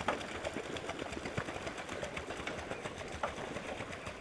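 Pedal-driven bicycle boat on water cans, its drivetrain and paddles clattering in a rapid, steady run of small clicks as it is pedalled.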